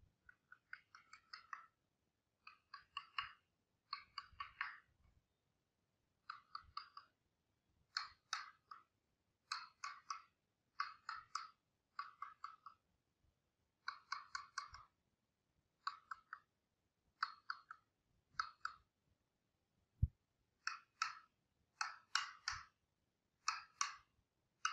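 Mallet tapping the handle of a wood-carving gouge, driving the blade into the wood in short bursts of several quick, light taps, one burst about every second and a half. A single duller knock about twenty seconds in.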